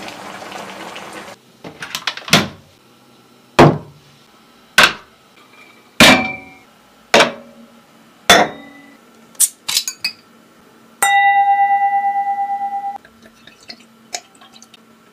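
Sharp clinks and clanks of cookware and glassware, about one a second, after a short hiss at the start. Near the end one clear ringing note is held about two seconds and fades.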